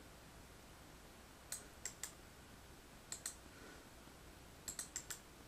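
Scattered sharp clicks of computer input over faint hiss: three around one and a half to two seconds in, a pair about three seconds in, and a quick run of four near the end.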